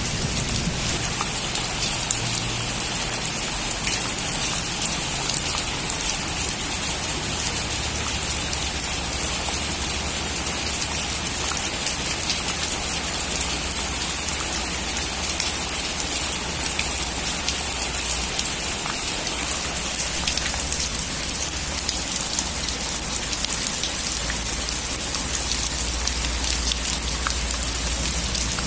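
Steady heavy rain drumming on a metal roof, a dense hiss full of individual drop ticks. A low thunder rumble dies away at the very start.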